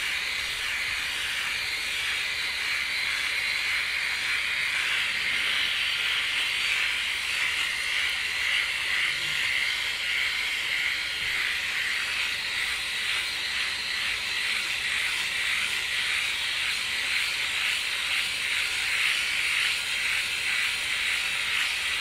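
Flawless Legs electric leg shaver running with a steady high whir as it is moved over the leg, shaving off hair.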